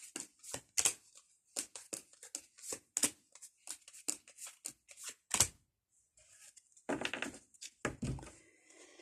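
Fortune-telling cards being dealt and laid out on a table: a quick, uneven run of small clicks and snaps, then a short rustle of card handling near the end.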